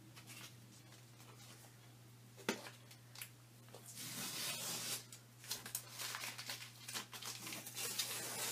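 Blue painter's tape being peeled off the edge of a resin-coated wooden panel: a crackly ripping that starts about halfway through and goes on in uneven pulls, after a single sharp tick a little earlier.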